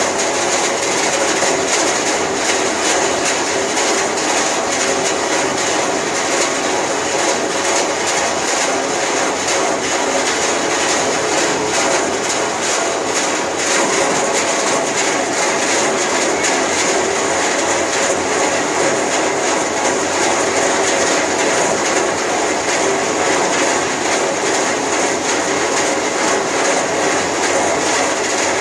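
CSJ-B rubber coarse crusher running, a steady, loud mechanical din with a fast, continuous clatter.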